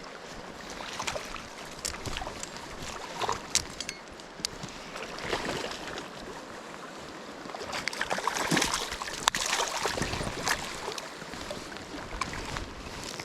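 Water splashing in a shallow stream over the steady rush of running water, in irregular bursts that are busiest for a couple of seconds past the middle.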